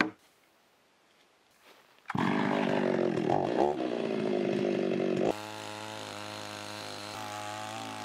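Two-stroke chainsaw cutting through a log, starting about two seconds in; after about three seconds of loud running it drops to a quieter, steadier note.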